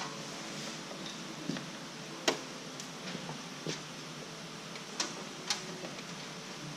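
A few scattered, light clicks and taps, as of small parts and tools being handled, over a steady background hiss.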